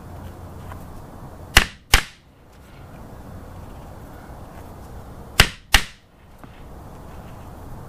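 Claw hammer striking the steel setting tool of a Lord & Hodge grommet kit, clinching a brass grommet and washer into tent canvas: two quick blows, then about four seconds later another two, each with a short ring.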